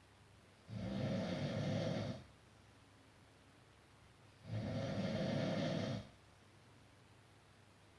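A person snoring: two snores, each about a second and a half long, roughly four seconds apart.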